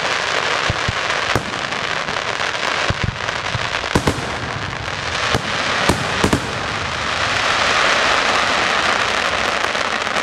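Daytime fireworks display: a dense, continuous crackling of firecrackers, broken by several sharp bangs of bursting shells. The crackle swells louder in the second half.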